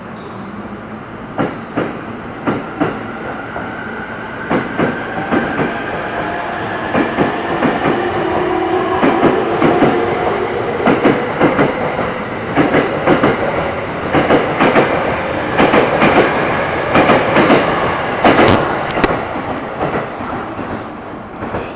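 Electric commuter train running through the station, its wheels clicking over rail joints in clustered pairs about every second and a half, with a faint motor whine under the rolling noise. The noise builds up over the first several seconds, and the clicks are loudest in the second half.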